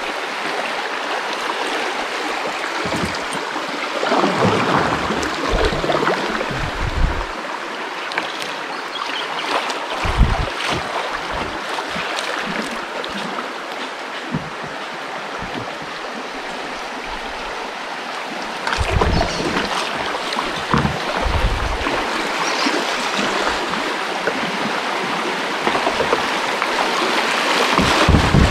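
Fast river water rushing steadily past a kayak, with low thumps and buffeting coming and going.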